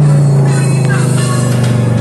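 Fiat Marea 2.4 20V's five-cylinder engine, breathing through a 5-into-1 exhaust header, with its note falling steadily as the revs drop. Music plays at the same time.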